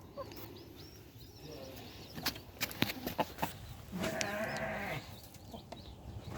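A farm animal's drawn-out call, about a second long, about four seconds in, over faint high peeps and a few sharp taps.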